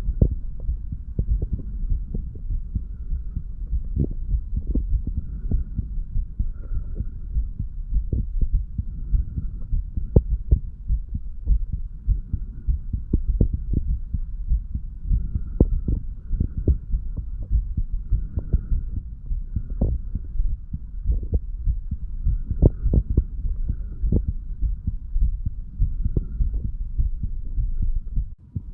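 A man's own heartbeat heard at the chest: repeated short, dull heart-sound knocks over a steady low rumble. The owner describes the valves as opening and closing nicely.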